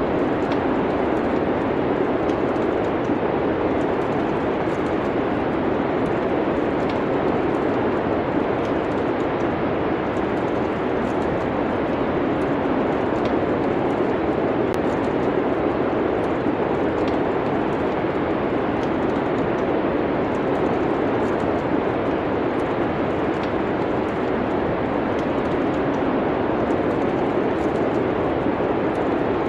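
Steady wind noise of a snowstorm, with faint, irregular crackles of a wood fire in a fireplace scattered through it.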